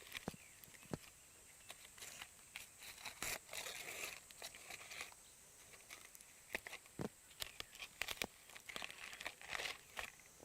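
Irregular soft tearing and crinkling with scattered sharp clicks, from handling charcoal-grilled bananas.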